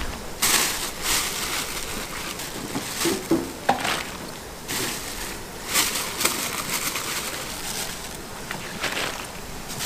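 Scattered knocks and clinks of kitchen work, with pots, bowls and utensils being handled, over steady background noise.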